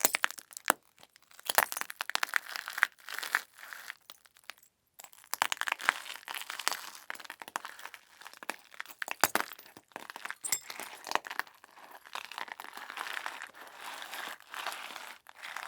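Glass breaking: sharp cracks and crashes with shards clinking and crunching, in two runs split by a short silence about four and a half seconds in.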